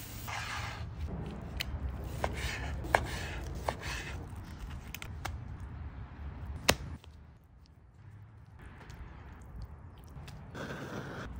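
Food-handling sounds from steak and sandwich assembly: a string of sharp clicks and knocks from metal tongs and a spoon, with scraping and crunching as sauce is spread on toasted bread. The loudest is a single sharp click a little past the middle, and the last few seconds are quieter.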